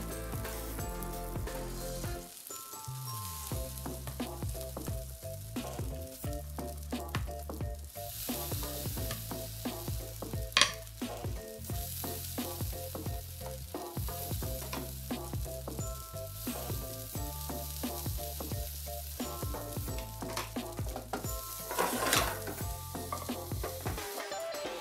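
Oil sizzling and crackling in a frying pan, with a sharp click about ten seconds in and a louder spell of crackling near the end.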